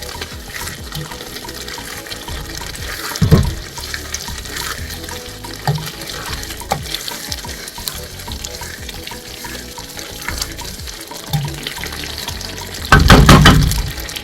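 A pot of cassava leaves bubbling at the boil while it is stirred, with a few short knocks of the spoon against the pot. There is a loud clatter just before the end.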